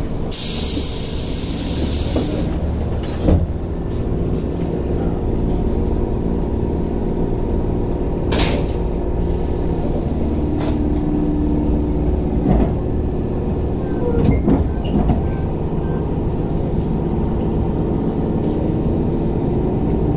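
Electric commuter train at a station platform, a steady rumble with a burst of hiss in the first couple of seconds and a handful of sharp metallic clicks spread through.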